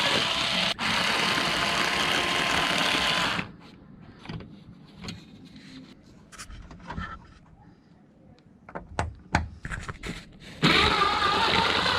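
Cordless electric screwdriver running to back out the door trim panel screws, a steady whir for about three and a half seconds. This is followed by scattered clicks and knocks of screws and plastic being handled, and the driver starts whirring again near the end.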